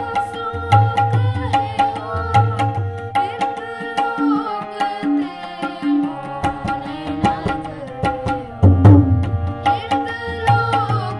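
Tabla and harmonium playing a shabad kirtan accompaniment: the harmoniums hold a reedy melody while the tabla keeps a steady rhythm of sharp treble strokes and deep bass strokes. The bass strokes drop away for a couple of seconds past the middle, then return with a loud stroke.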